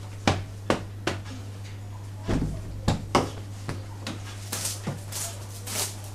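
Soft knocks and taps as a cloth bedsheet is handled, then about four and a half seconds in a hand broom of thin sticks starts brushing across the bedsheet in quick swishing strokes, about three a second. A steady low hum runs underneath.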